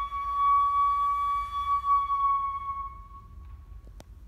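Solo flute holding one long final note at a steady pitch, which fades away about three and a half seconds in; a single sharp click follows near the end.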